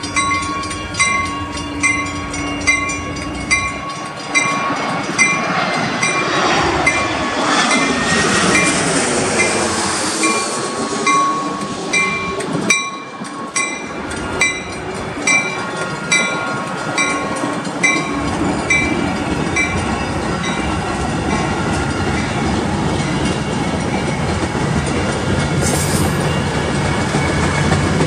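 Metra bilevel commuter train rolling past close by, its wheels clattering over the rail joints. For the first half a bell rings steadily about twice a second, typical of a grade-crossing warning bell.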